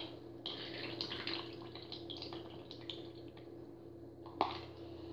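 A thin stream of liquid trickling and dripping from a carton into a bowl, faint and uneven, with one short knock about four and a half seconds in.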